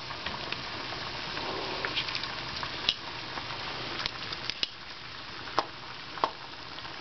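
Pot of water at a rolling boil, bubbling steadily, with scattered small clicks and taps and a few sharper ones in the second half.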